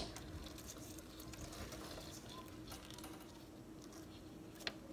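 Faint rustling and light ticks of pothos leaves and stems being handled and parted by hand, over a faint steady hum. A sharper click comes near the end.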